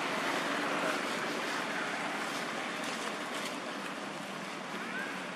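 Steady rushing outdoor background noise, like wind or distant traffic, with a faint short rising chirp near the end.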